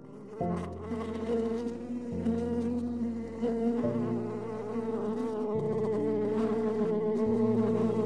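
A flying insect buzzing steadily.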